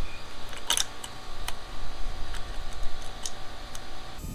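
Small metallic clicks and ticks as a throttle cable end is handled and fitted into a motorcycle carburetor's throttle linkage: a few sharp, separate clicks spread out, the loudest about a second in.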